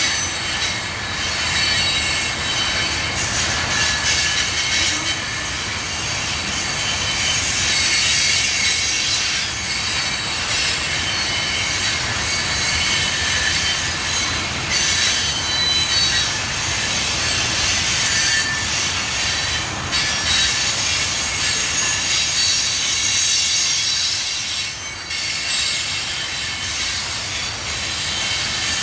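Norfolk Southern freight train rolling past, its steel wheels on the rails giving a steady rumble with a constant high-pitched wheel squeal.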